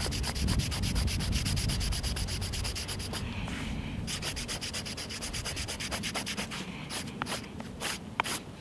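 A bar of stropping compound rubbed in quick, short back-and-forth strokes on the rough inside face of a leather belt, loading it as a strop. The strokes pause briefly about three seconds in, resume, then tail off into a few separate scrapes near the end.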